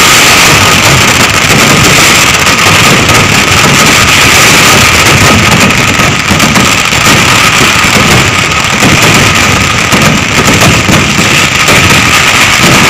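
Fireworks barrage (vedikettu): rapid explosions and rocket bursts merge into a very loud, unbroken roar, with a steady high whistle over it.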